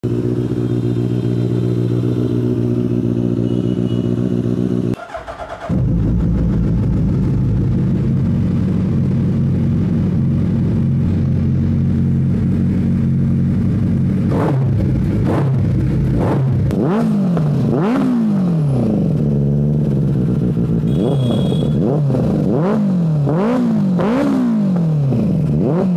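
Sport motorcycle engines idling, with a brief drop about five seconds in. In the second half the throttle is blipped over and over, each rev rising and falling in pitch about once a second.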